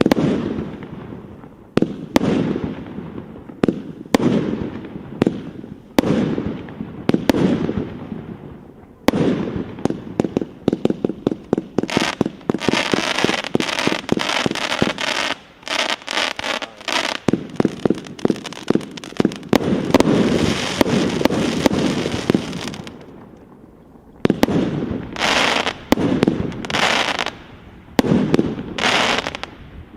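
A 120-shot firework cake with 20–36 mm tubes firing. Shots and bursts come about once a second at first. From about nine seconds a rapid volley of shots and dense crackling runs through the middle, then separate bursts return near the end.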